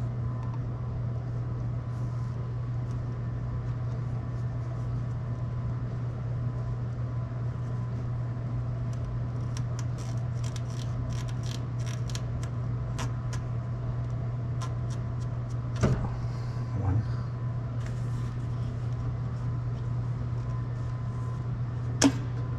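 A steady low machine hum runs throughout. Over it come small clicks of rubber hoses and spring clips being worked loose from the intake manifold, bunched together near the middle, and two sharper knocks later on.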